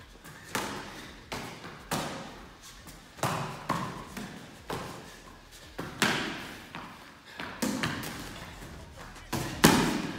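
About a dozen boxing punches landing one after another at an uneven pace, roughly one a second, each a sharp thud; the loudest comes near the end.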